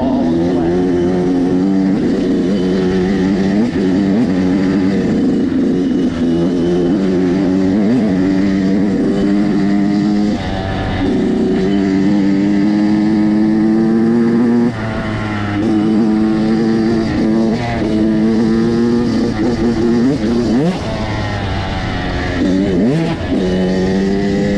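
Dirt bike engine running along a trail, the throttle rising and falling, with several quick revs and lifts of the throttle.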